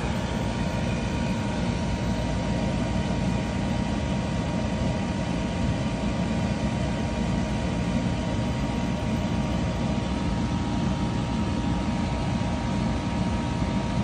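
BLACK+DECKER 12,000 BTU portable air conditioner running: a steady, even hum with a faint steady whine above it.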